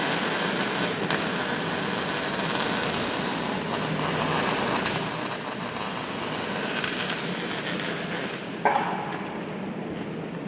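MIG welder's arc crackling steadily, stopping about eight and a half seconds in.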